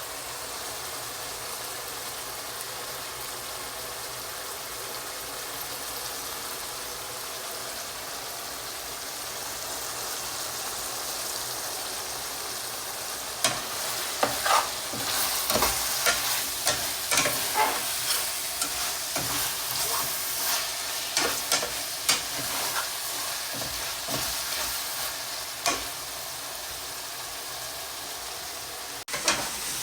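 Food frying in a pan with a steady sizzle. About halfway through, a utensil starts scraping and knocking irregularly against the pan as the food is stirred.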